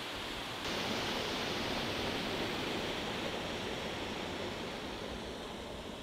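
Steady rush of a stream's running water, a little louder from about a second in and slowly easing off.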